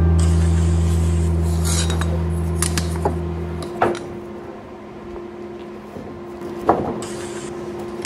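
Carpenter's pencil scratching lines on a wooden board, with a metal ruler scraping and clicking against the wood in a few sharp taps. A deep sustained note holds under the first half and stops about halfway through.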